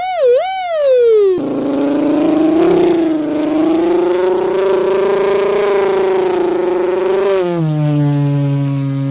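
A man's vocal imitation of sound effects. First a wobbling tone that slides down, then a steady, buzzy engine-like drone for about six seconds that drops to a lower pitch near the end.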